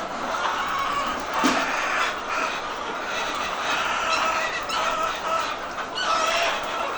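A large flock of chickens clucking continuously, many short calls from different birds overlapping into a steady hubbub.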